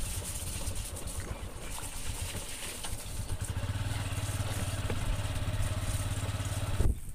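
Motorcycle engine running at low speed on a rough dirt road. The sound is uneven at first, then settles into a steady low engine hum about halfway through, and cuts off suddenly near the end.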